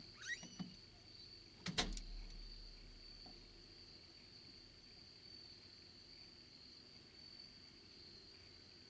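A glass storm door shutting, with a sharp latch click about two seconds in. Then steady high-pitched chirring of insects.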